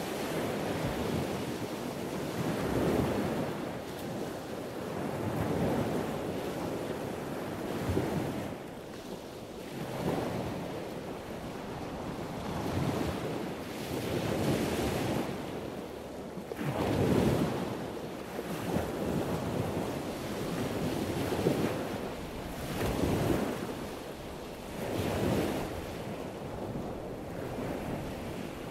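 Ocean waves washing in, the rushing noise swelling and falling every two to three seconds.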